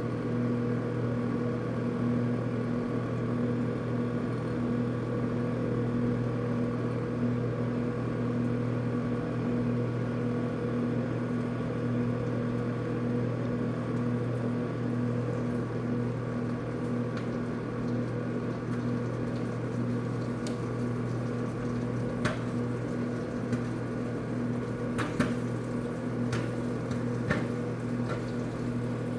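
Samsung microwave oven running with a steady hum while cooking popcorn. In the last third, a handful of sharp, scattered pops come in as the first kernels start to pop.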